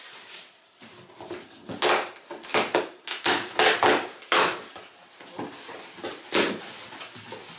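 Cardboard box being opened by hand: tape pulled off and the flaps torn and pushed open in an irregular run of scratchy tearing and scraping sounds, the loudest between about two and four and a half seconds in.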